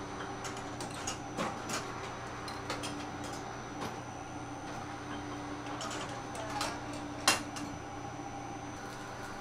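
Bakery machinery humming steadily, with scattered light clicks and metallic clinks and one sharp, louder click about seven seconds in.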